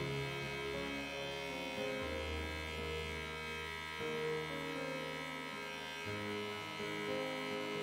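Slow background music with long held notes that change about every two seconds.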